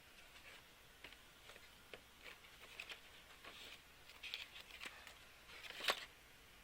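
Faint rustling and light clicks of kit parts and packaging being handled, with one sharper click near the end.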